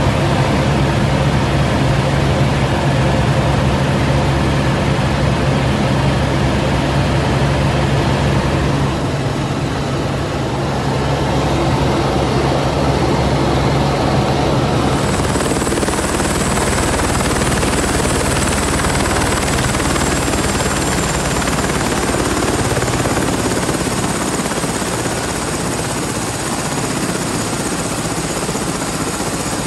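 A Helibras AS350 Esquilo police helicopter's turbine and rotor running steadily, heard inside the cabin in flight. About halfway through, the low steady hum gives way to a high steady turbine whine over the rotor noise.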